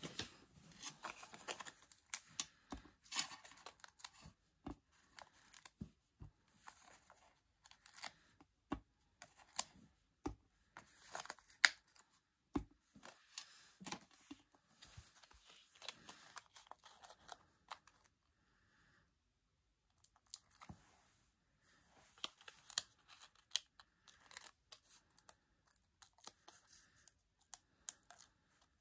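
Foam adhesive dots (Stampin' Up! Dimensionals) being peeled one by one off their backing sheet and pressed onto paper: faint small peeling rustles and light taps, with a short pause of near silence about two thirds through.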